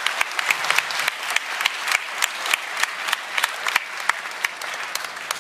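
Audience applauding, with loud, sharp claps from hands close to the microphone standing out over the wash of the crowd's clapping; it eases off slightly near the end.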